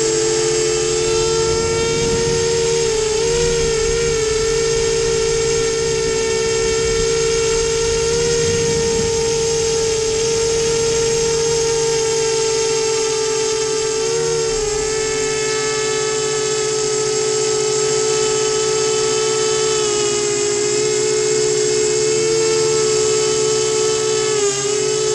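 Small FPV racing quadcopter's brushless motors and propellers whining steadily, heard close from the onboard camera. Several nearby pitches drift and cross as the throttle shifts, over a low rushing noise.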